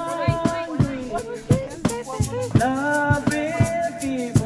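Music with a steady beat and a melody that bends in pitch.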